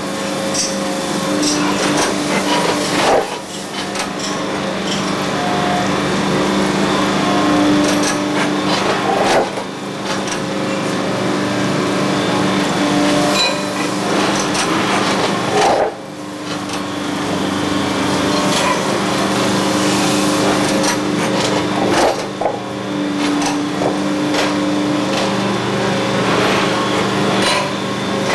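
Heavy track-renewal work train running, its diesel engines humming steadily under scattered metallic knocks and clanks from the machinery handling concrete ties. The noise dips briefly about every six seconds.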